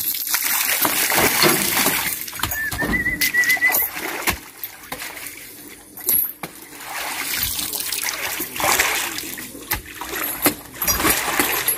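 Oil palm fresh fruit bunches being speared with a long pole and tossed up into a dump truck's bed: an irregular run of heavy thuds and crunching rustles as the spiky bunches land on the pile. A brief high warbling call sounds about two and a half seconds in.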